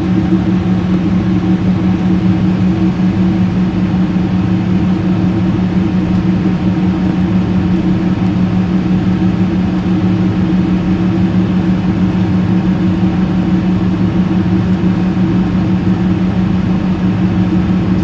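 Jet airliner's engines and rushing air heard from inside the passenger cabin: a loud, steady drone with a low hum.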